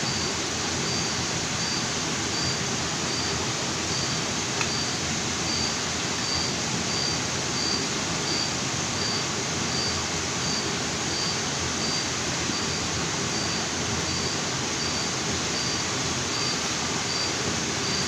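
Steady rush of a jungle waterfall and rocky stream, with a faint high note pulsing evenly about one and a half times a second and a single small click about four and a half seconds in.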